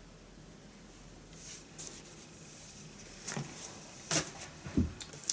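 Paper record sleeves rubbing and sliding as vinyl singles are handled and swapped: a series of short scraping rustles starting after about a second and a half, with a couple of soft thumps near the end.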